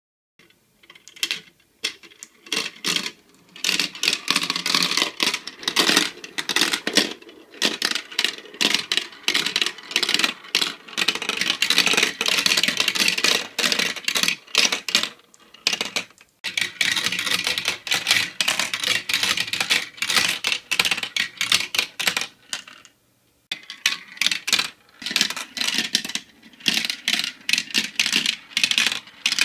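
Marbles rolling and clattering down a marble run: a dense stream of rapid clicks and rattles that starts just after a moment of silence and breaks off briefly near the end.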